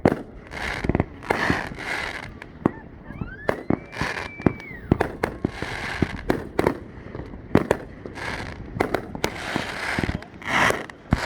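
Fireworks display: many sharp bangs going off in quick succession throughout.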